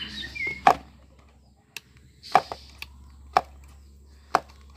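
Sharp wooden clacks, five or six of them at roughly one a second, as the hinged jaw of a children's barongan (rampak barong) mask is snapped shut.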